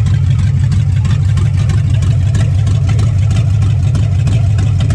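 A 1969 Plymouth Fury's 400 cubic-inch big-block V8 idling steadily and loudly, running for the first time this year.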